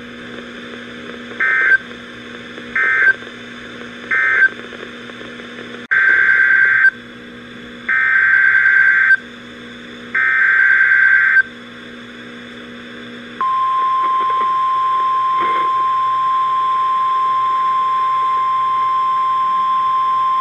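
NOAA Weather Radio Emergency Alert System data signals. First come three short screeching SAME end-of-message bursts that close the previous warning. Then come three longer SAME header bursts for the next warning, and about 13 seconds in the steady 1050 Hz Weather Radio warning alarm tone begins and holds.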